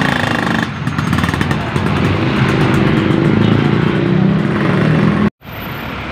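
Motorcycle and truck engines running close by in slow, jammed traffic, a steady engine drone. About five seconds in the sound cuts off abruptly, then comes back quieter.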